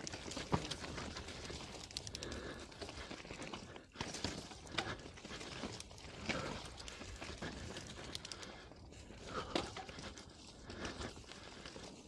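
Mountain bike riding a rough, rocky trail: tyres rolling over rocks and dirt, with frequent sharp knocks and rattles from the bike.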